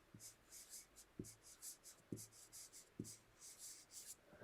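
Faint handwriting: a quick run of short, scratchy writing strokes, with a soft low knock about once a second.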